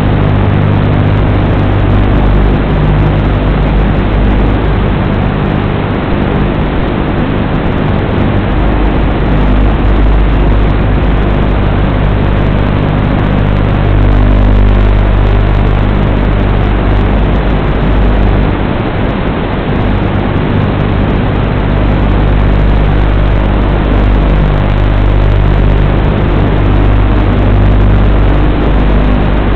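Bfight 210 racing quadcopter's motors and propellers in flight: a loud, steady buzz whose low pitch shifts a little with throttle, heard through the FPV goggles' video-link recording under a dense hiss.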